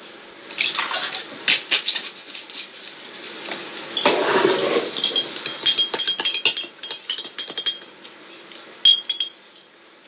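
Metal spoon clinking against a drinking glass, the glass ringing briefly after many of the strikes. A run of quick clinks, then a second-long burst of noise about four seconds in, then more rapid clinks and one last clink near the end.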